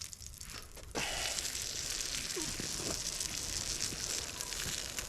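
Bacon frying in a pan over a campfire: a steady sizzling hiss dotted with small crackles, which gets louder about a second in.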